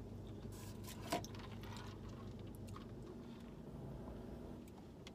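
A person chewing a mouthful of sub sandwich close to the microphone, with soft wet mouth clicks and one sharper click about a second in, over a faint steady low hum.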